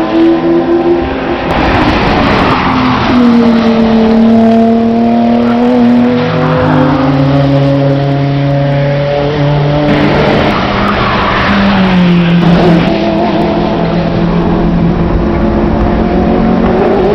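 Racing cars' engines at high revs passing one after another, several engine notes overlapping. Their pitch slides and steps down as each car goes by and shifts gear, with a rush of noise as they pass.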